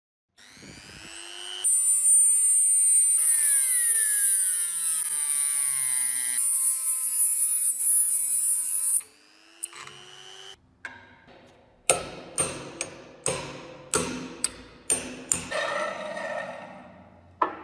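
Handheld rotary tool with a small abrasive grinding disc spinning up to a high whine and grinding through the rusted pivot rivet of antique scissors; the pitch sags and recovers under load, and the tool stops about nine seconds in. After it come about eight sharp knocks and then a stretch of scraping.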